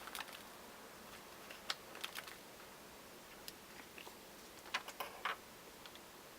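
Scattered light clicks and taps of a small screwdriver and tiny screws being driven into a smartphone's frame during reassembly.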